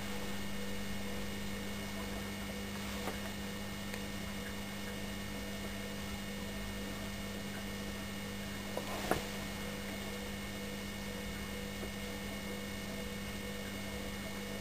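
Steady low electrical hum with faint higher tones, broken only by a couple of small clicks about three and nine seconds in.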